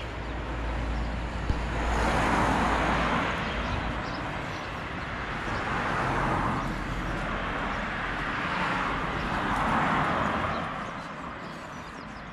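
Road traffic noise that swells and fades three times, about four seconds apart.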